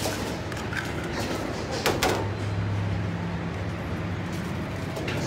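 A large knife blade scraping down a long metal skewer, pushing chunks of roasted mutton off onto aluminium foil. There are a few scrapes, the loudest about two seconds in, over a steady low hum.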